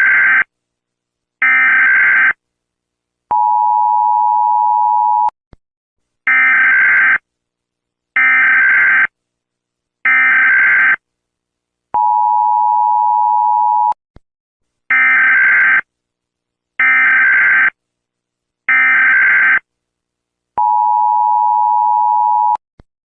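Emergency Alert System signals: short, buzzy SAME data bursts about a second apart, each group followed by about two seconds of the steady two-tone EAS attention signal. The cycle comes round three times, with a faint click at the end of each tone.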